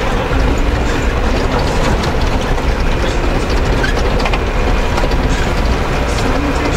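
Vehicle driving over a rough dirt road: a steady low engine and road rumble, with the body rattling and clattering throughout.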